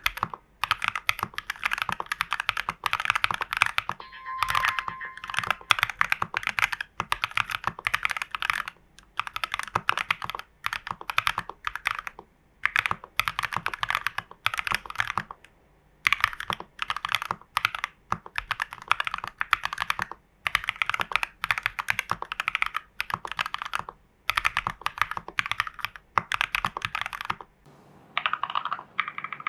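Typing on a custom mechanical keyboard with KTT Strawberry linear switches in a plastic TU40 case with case foam, PCB foam and a tape mod: fast runs of keystrokes broken by short pauses every few seconds.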